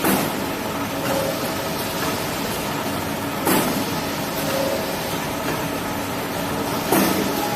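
An automatic band saw cutting machine for tissue-paper rolls running steadily with a mechanical hum. Three times, near the start, midway and near the end, a brief louder burst of noise comes through, about every three and a half seconds, in the machine's repeating cycle.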